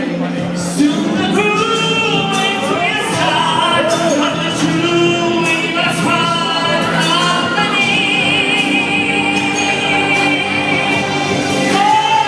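A song: a lead vocal sung over musical accompaniment, with a long held note with vibrato in the second half.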